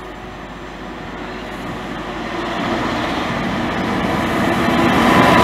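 Class 66 diesel-electric freight locomotive, with its two-stroke EMD V12 engine, approaching at speed with its wagons. The engine and wheel-on-rail rumble grow steadily louder as it nears.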